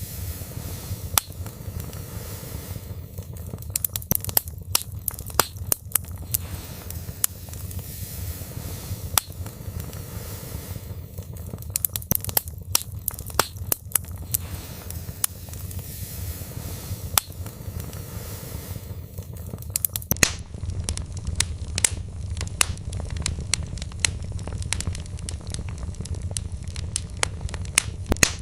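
Log fire burning in a fireplace: a steady low rumble of flames with frequent sharp, irregular crackles and pops from the burning wood.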